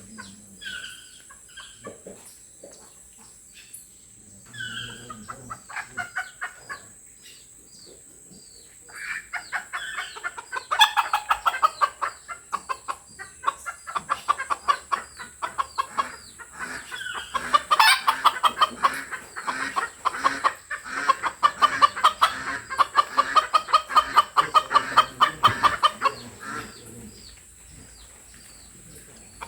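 Toucans calling. A few separate yelping notes come first, then a long run of rapid, repeated croaking calls builds up about a third of the way in and fades out near the end.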